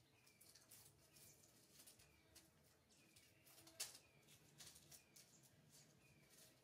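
Near silence: faint background ambience with a soft, short falling chirp repeating about every two-thirds of a second and a few faint light clicks.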